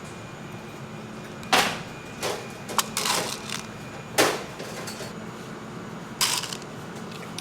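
A few sharp clatters and crinkles from things being handled, over a steady machine hum.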